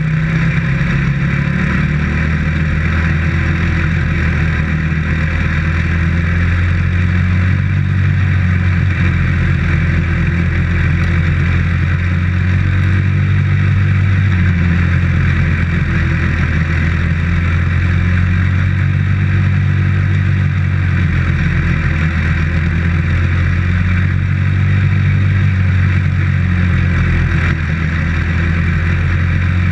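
Dirt-track race car's engine running hard at racing speed, heard from inside the cockpit. Its pitch rises and falls a little as the car goes through the turns and down the straights.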